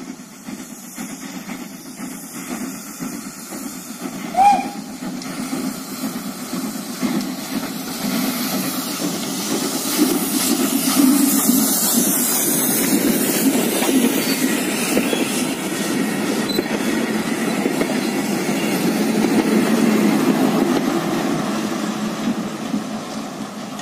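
Steam locomotive 313.902 hauling a short train of carriages past at close range, getting louder as the engine and coaches go by and fading near the end as the small T 211.0 diesel locomotive at the rear passes. A brief high-pitched sound stands out about four and a half seconds in.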